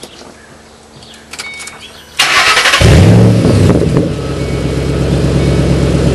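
2008 Mustang Bullitt's 4.6-litre V8 cranked by its starter about two seconds in, then catching with a brief flare of revs and settling into a loud, steady idle through a newly fitted Bassani axle-back exhaust.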